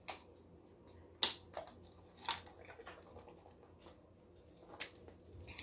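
A few faint, scattered clicks and taps, as of small kitchen items being handled; one sharp click about a second in is the loudest.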